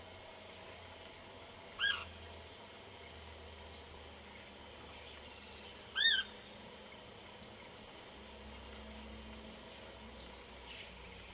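Cliff flycatcher (Hirundinea ferruginea) calling: two loud, short arched notes about four seconds apart. Fainter, high, falling notes come in between.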